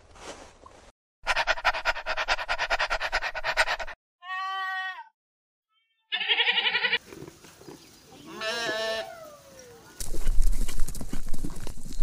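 Goats bleating: three separate wavering bleats between about four and nine seconds in, after a harsh, rapid rattling sound lasting about three seconds. From about ten seconds in, a horse walking, with hoof thuds and a low wind rumble.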